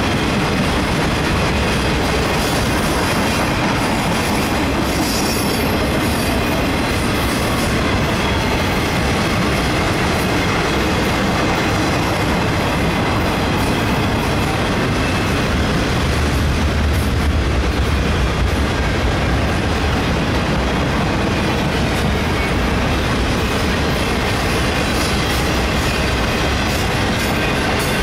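Container-laden freight flatcars of a long train rolling past close by: a steady rumble and clatter of steel wheels on the rails.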